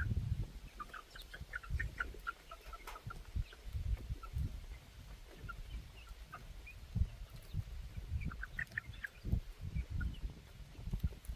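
Chickens clucking and giving short high chirps, on and off, with a flurry near the start and another near the end. Irregular low bumps and rumbles run underneath.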